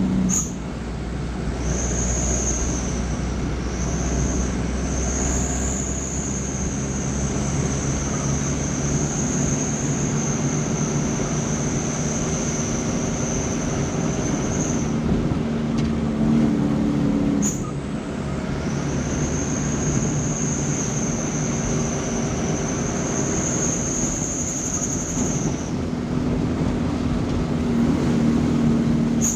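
Vehicle engine drone and road noise, steady throughout, with a high-pitched whine held for long stretches and dropping out for a few seconds in the middle.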